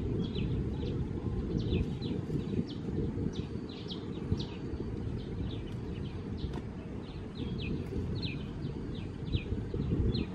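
Small birds chirping: short high calls, each dropping in pitch, several a second, over a steady low rumbling noise.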